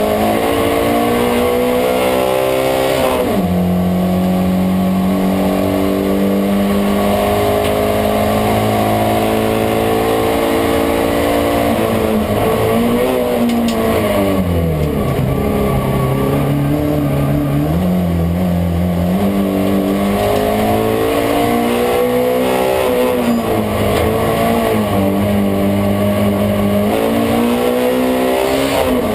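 Hill-climb race car's engine heard from inside the stripped, roll-caged cabin, running hard at high revs. Its pitch drops sharply about three seconds in, sinks low and climbs back up in the middle, and drops again near the end as the driver lifts and gets back on the throttle.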